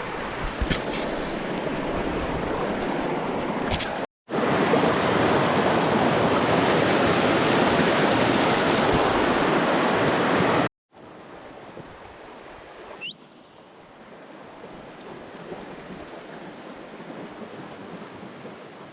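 Steady rush of flowing river water, cut twice by brief silences. It is loudest in the middle stretch and much quieter in the last, with a few sharp clicks in the first few seconds and a short high rising chirp about two thirds of the way through.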